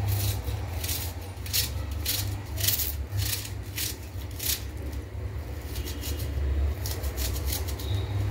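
Kitchen knife cutting an onion: irregular sharp strokes against a cutting board, about two a second, pausing midway and starting again near the end, over a steady low hum.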